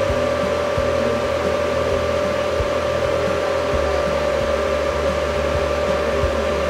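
Steady whirring hum of a fan or blower motor on the electronics bench, with one strong steady tone running through it and a few faint light clicks.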